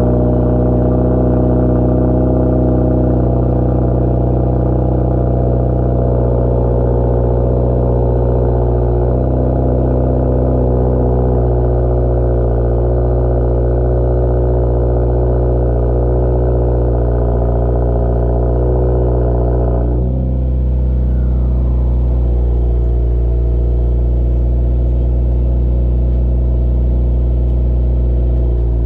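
Stage 2 2020 Subaru WRX's turbocharged 2.0-litre flat-four, with a Cobb intake and catted J-pipe, idling at the exhaust tips just after a cold start. The idle runs steady, then settles to a lower, quieter note about twenty seconds in.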